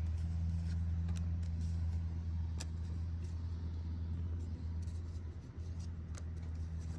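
Trading cards being flipped and handled: scattered light clicks and rustles over a steady low hum.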